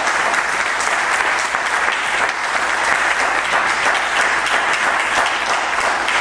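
Audience applauding steadily after a spoken-word piece: a dense, even patter of many hands clapping.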